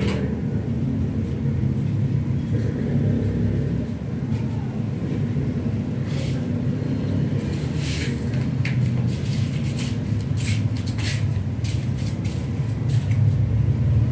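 A steady low rumble, with a scatter of sharp clicks in the second half.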